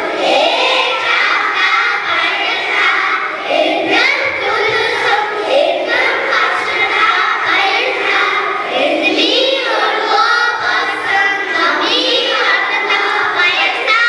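Young children singing a song.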